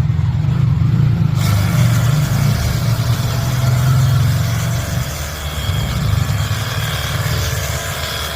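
Cordless 48V battery pressure washer running: its pump motor hums steadily, and about a second and a half in the water jet starts spraying with an even hiss that goes on to the end.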